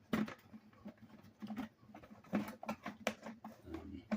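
Irregular clicks, knocks and scrapes of a homemade toy's sliding door being worked back and forth by hand, catching at one spot on its track.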